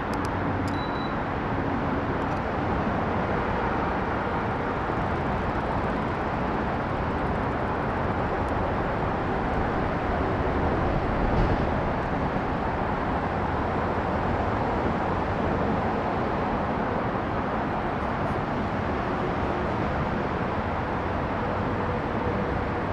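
Steady vehicle and traffic noise, an even rumble with no clear rhythm.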